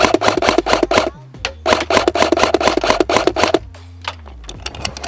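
Two bursts of rapid full-auto fire from an airsoft electric rifle, the first ending about a second in and the second running about two seconds after a short pause, then a few scattered clicks, over background music.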